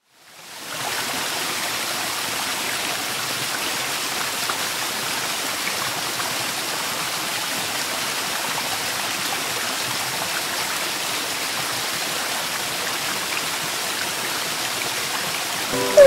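Water from a small desktop fountain falling steadily from a seashell spout into a pebble-filled pool, a constant splashing that fades in over the first second.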